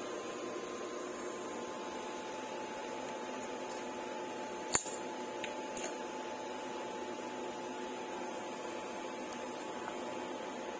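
A steady hum made of several faint tones, with one sharp click a little under five seconds in and a fainter tick about a second later.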